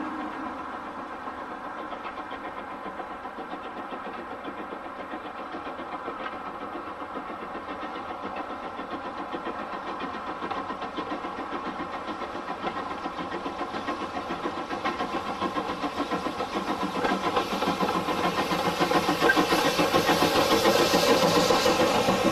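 Steam locomotive working a passenger train, its exhaust beating in a fast, even rhythm that grows steadily louder as it approaches and is loudest near the end.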